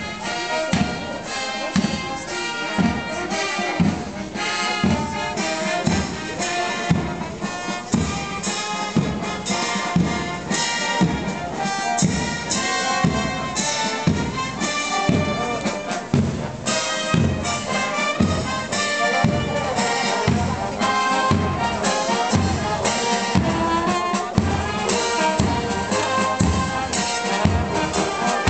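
Brass band music, trumpets and trombones over a steady drum beat, in the manner of a march.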